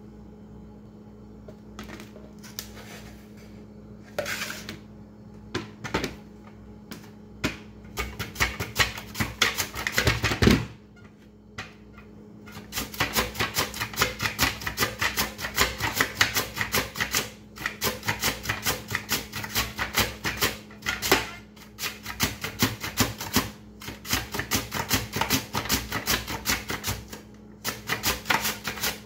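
Raw potato being sliced on a plastic mandoline slicer: quick, even scraping strokes of the blade, about four a second, in long runs with short pauses between. A few scattered knocks come before the slicing settles into its rhythm.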